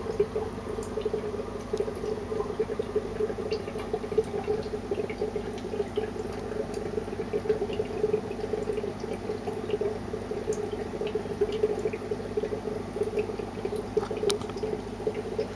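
Steady sound of running or bubbling water over a low hum, with scattered faint ticks.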